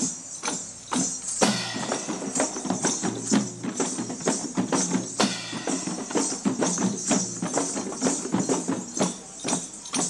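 Inniyam, a traditional Tamil percussion ensemble, playing a steady marching beat of drum strikes, about three a second, with jingling metal over it. A held pitched note, like a horn, sounds twice: about a second and a half in and again about five seconds in.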